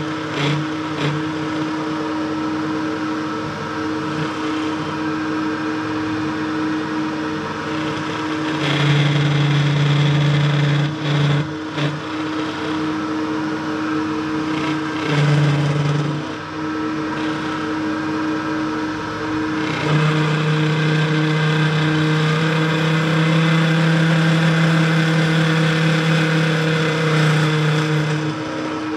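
Bridgeport-type milling machine spinning a very small end mill at high speed, cutting welded-up cast aluminium on a motorcycle engine case. Under a steady motor hum, the cut grows louder and harsher in stretches, the longest through most of the second half.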